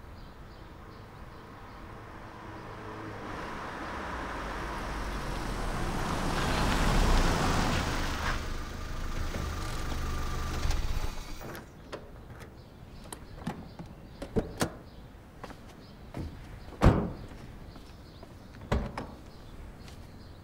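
A small van's engine growing louder as it draws up, then cutting off about eleven seconds in. It is followed by scattered clicks and clunks of its doors, the loudest a sharp slam about three quarters of the way through.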